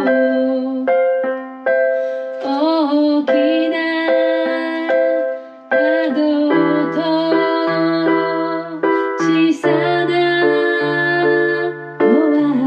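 Electronic keyboard playing a slow piano-voiced ballad accompaniment, with a woman singing over it in a few phrases.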